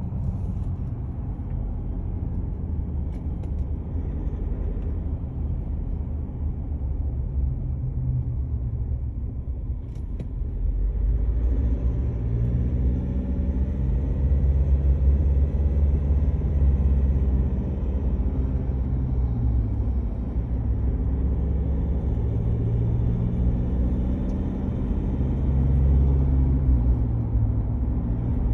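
2019 Ford Ranger Wildtrak's 2.0-litre bi-turbo diesel and 10-speed drivetrain on the move, with heavy rumble from big tyres and a droning tone that rises and falls in pitch, louder from about a third of the way in. This is the persistent noise the owner has been unable to get fixed since the truck was new, which he says gets loud enough to draw pedestrians' attention.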